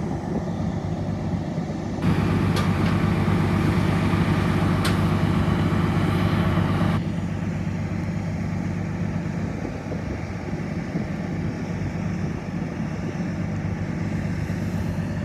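Heavy trucks idling, a steady low engine rumble that grows louder with added hiss from about two seconds in until about seven seconds in.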